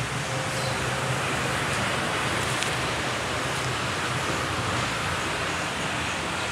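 Steady urban outdoor background noise: a constant hiss with a low hum underneath, from distant road traffic.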